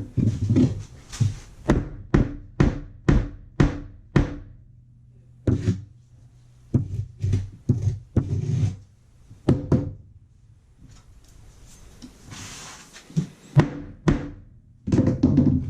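Hand tools knocking on a wooden subfloor during patching work: runs of sharp thunks, about two to three a second, with a short scrape about twelve seconds in.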